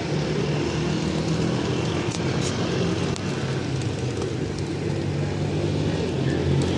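Steady drone of road traffic: vehicle engines running with a continuous low hum.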